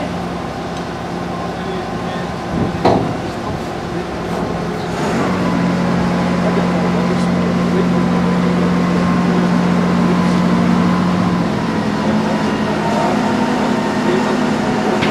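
Crane engine running steadily, picking up revs about five seconds in as it works, then easing back near twelve seconds. A single sharp knock sounds just before three seconds.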